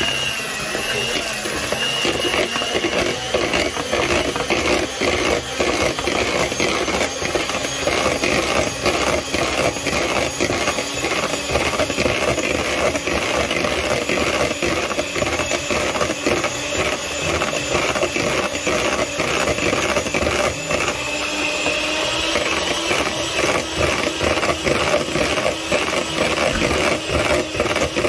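Electric hand mixer running steadily, its twin beaters whipping a thick cream cheese and sugar mixture in a bowl: a constant motor whine with a fast, rough churning texture, the pitch shifting slightly about three-quarters of the way through.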